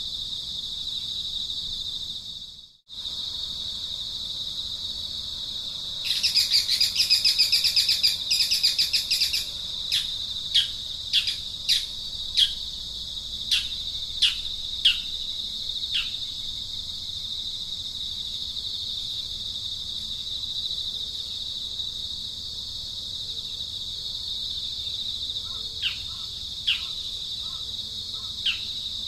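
Steady high-pitched insect drone with birds calling over it: a burst of chattering song about six seconds in, then a run of short, sharp, falling single notes, and a few more near the end. The sound cuts out for a moment near three seconds.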